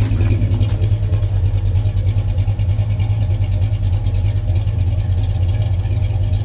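The LS-swap V8 in a Chevrolet Caprice donk idling steadily, with a low, even exhaust note.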